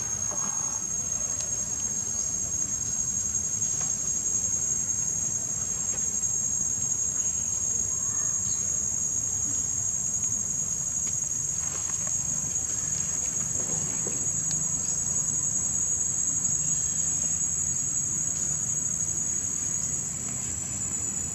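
Insects trilling in a steady, high, unbroken whine, over a low rumble.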